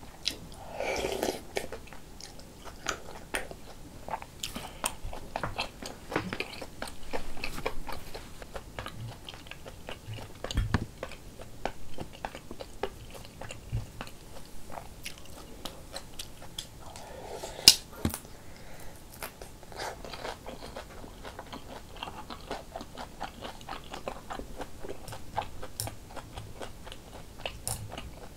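Close-miked eating of rice cake soup: wet chewing and mouth sounds, with a slurp from a spoonful near the start and small clicks of chopsticks and spoon on the bowls. A single sharp click about two-thirds of the way through is the loudest sound.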